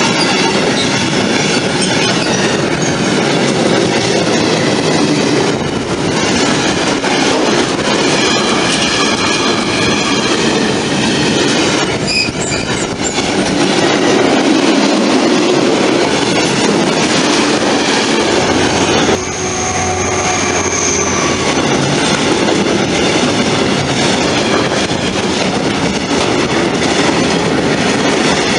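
Freight train rolling past close by, covered wagons and then double-deck car-transporter wagons, wheels clattering over the rails with thin high wheel squeal at times. About two-thirds of the way in, the sound changes abruptly to another freight train of tank wagons passing close, with a brief high squeal.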